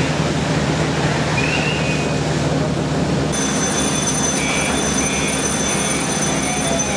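Steady loud mechanical rumble like a vehicle engine running, changing abruptly about three seconds in, after which faint short beeps repeat about twice a second.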